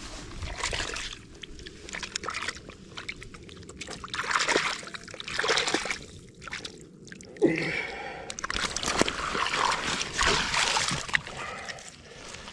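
Shallow lake water splashing and sloshing in several bouts as a caught fish is dipped and swished about in it by hand.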